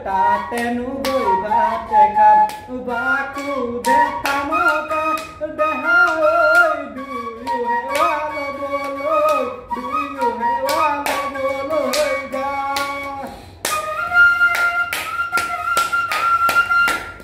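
Bamboo flute (bahi) playing a Bihu tune, the melody bending and ornamented, over sharp clap-like taps. About 13 seconds in it moves up to a high, steadily held note.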